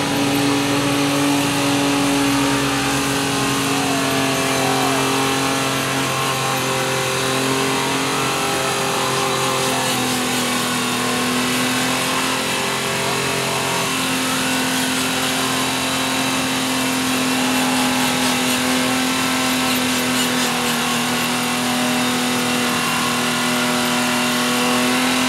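Off-road vehicle's engine held at high, steady revs, its pitch dipping slightly about ten seconds in and climbing back.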